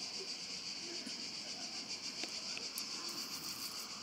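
Faint, steady high-pitched chirring of insects, with a few small clicks.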